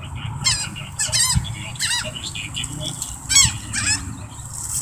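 Seagulls squawking overhead: about five short, harsh, wavering calls, one after another.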